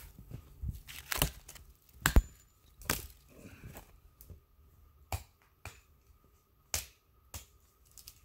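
A hatchet chopping and snapping dead lower branches off a spruce trunk: about eight sharp, dry woody cracks at uneven intervals, the loudest about two seconds in, with fainter crackling of twigs between them.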